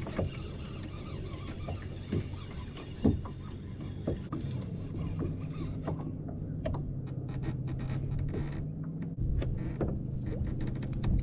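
Baitcasting reel being cranked steadily, a mechanical whirring with scattered clicks and knocks, as a hooked fish is reeled in.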